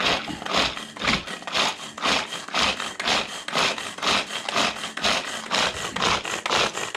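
Shelled walnuts being ground, with a rhythmic rasping stroke about twice a second.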